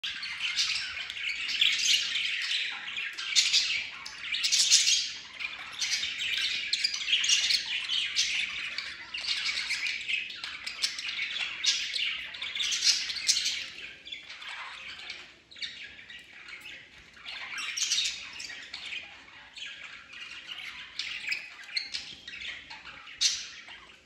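A flock of budgerigars chattering, with continuous overlapping chirps and squawks. It is louder and busier in the first half and softer after about halfway.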